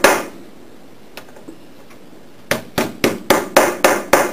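Small hammer tapping a bearing into an AndyMark Toughbox gearbox plate on a wooden workbench. One strike at the start, a pause of about two seconds, then a run of quick taps at about four a second.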